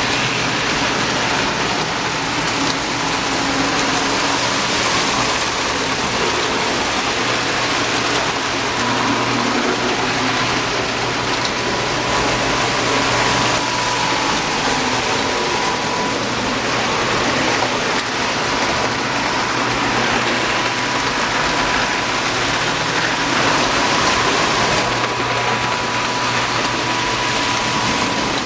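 Several Lionel postwar toy trains running at once on O27 tubular track: a steady rolling rumble and clatter of wheels and motors, with a faint steady hum.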